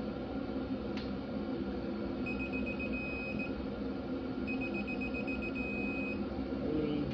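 Digital torque wrench beeping as bolts are brought up to an 80 inch-pound setting. Two runs of rapid high beeps come about two seconds in and again about four and a half seconds in, each ending in a steady tone once the set torque is reached. A single click sounds about a second in.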